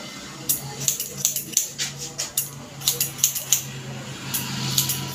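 Barber's scissors snipping hair: short sharp snips at an irregular two or three a second, over a steady low hum.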